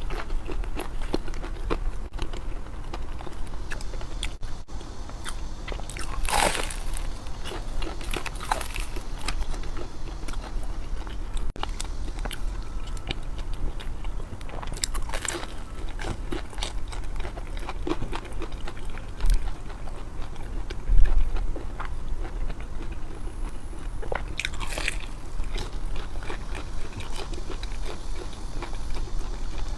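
Close-miked eating: a person chewing food steadily, with a few loud crisp crunches from bites.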